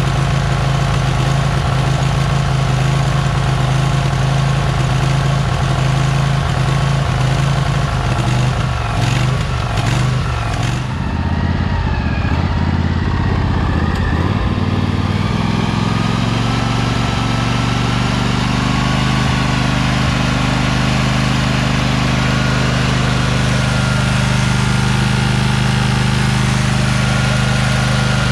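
Riding mower's Briggs & Stratton Vanguard engine running steadily. About a third of the way in, its note wavers and changes as the dash throttle lever is worked, then it settles into a steady run at a different speed.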